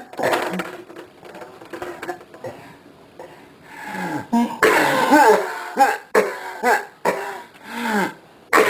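A person coughing hard and over and over, in rough, voiced hacks mixed with throat clearing. The coughs are quieter for the first few seconds, come loudest about halfway through, then break into separate hacks near the end.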